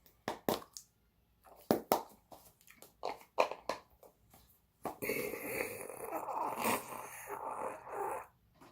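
Snus cans and their packaging being handled: a string of sharp clicks and taps, then about three seconds of rustling from about five seconds in.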